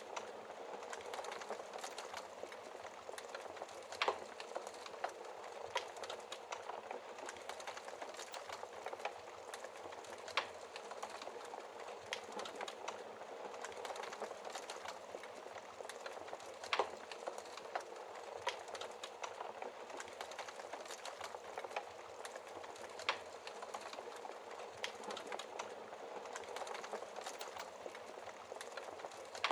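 Wood fire crackling in a fireplace: a steady hiss of flames with constant small crackles and a louder pop about every six seconds.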